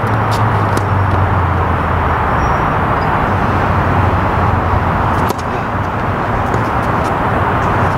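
Steady rushing outdoor noise with a low hum, and a single crack of a tennis serve being struck about five seconds in.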